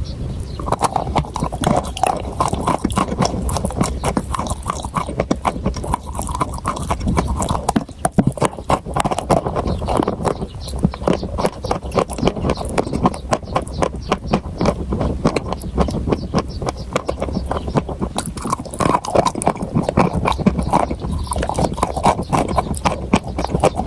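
Close-up crunching, a dense continuous run of sharp crackling clicks, as of crunchy food being bitten and chewed, with a brief lull about eight seconds in.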